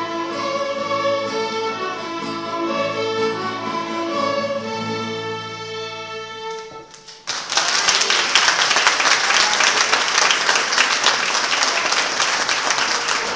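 Student string orchestra of violins, with guitar, playing the final bars of a piece and stopping on a held chord about six and a half seconds in. Audience applause breaks out right after and continues to the end.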